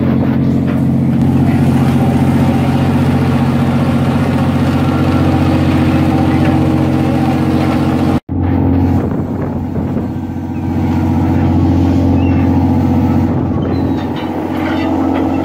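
Steady drone of a crab fishing boat's engine and deck hydraulics, over a hiss of wind and sea. The sound cuts out for an instant about eight seconds in, then the drone resumes.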